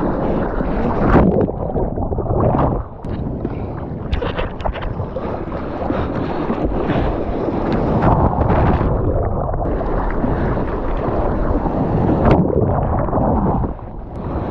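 Seawater sloshing and splashing around a camera at water level on a bodyboard, with wind buffeting the microphone: a continuous rush of water with irregular louder splashes.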